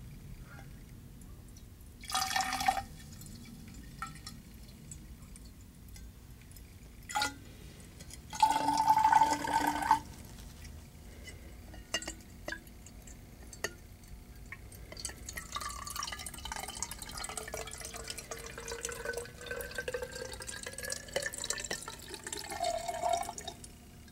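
Liquid poured into a glass graduated cylinder: two short splashy pours, a few light glass clinks, then a longer, lighter trickling pour with a slowly rising tone that stops just before the end.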